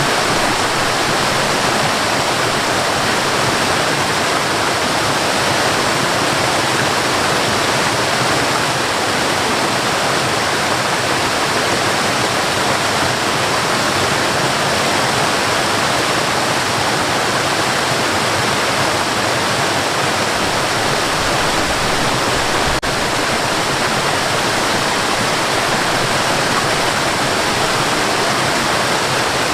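Waterfall: a steady, loud, unbroken rush of falling water.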